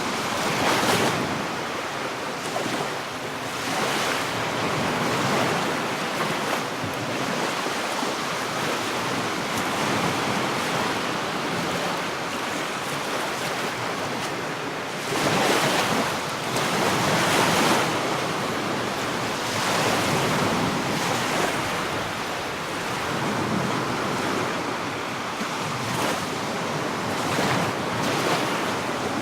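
Sea surf breaking on a sandy beach: a continuous rush of waves that swells and falls every few seconds, with the loudest surge about halfway through.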